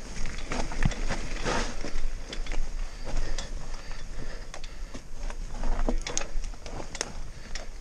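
Nukeproof Mega full-suspension mountain bike riding fast down a wet dirt trail: tyres rolling over soil and roots, with many irregular rattles and knocks from the bike's chain and suspension. A steady low rumble runs underneath.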